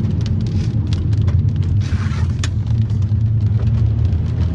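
Steady low rumble of a car driving, heard from inside the cabin, with scattered sharp taps of rain striking the vehicle.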